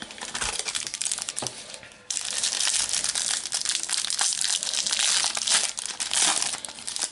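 Foil wrapper of a Match Attax trading-card packet being crinkled and torn open by hand: lighter rustling at first, then, about two seconds in, loud dense crinkling as the foil is worked open.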